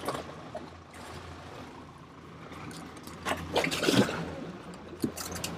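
Rope and hands rustling and knocking against deck fittings as a mooring line is handled on a yacht, loudest about three to four seconds in. Under it run a steady low hum and water trickling, with a few sharp clicks near the end.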